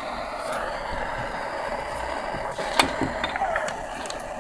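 Handheld torch flame burning with a steady hiss, heating the nail of a dab rig for a dab. A few light clicks and taps about three seconds in.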